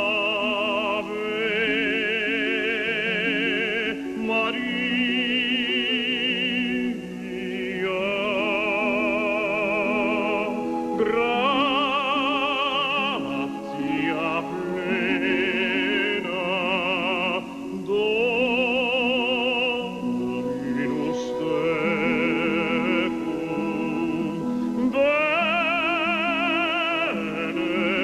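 An operatic singing voice with heavy vibrato over sustained instrumental accompaniment, in long phrases broken by brief pauses for breath.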